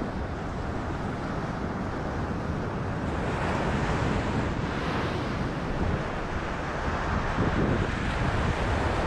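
Wind rushing over the microphone with ocean surf washing in: a steady noise that grows a little louder partway through.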